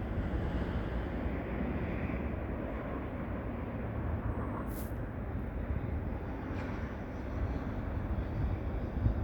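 Steady low rumbling environmental noise, with a short sharp click about halfway through.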